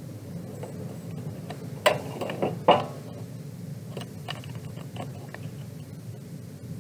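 Handling noise: a few sharp knocks and clicks, the loudest about two and about three seconds in, with smaller ticks later, over a steady low hum.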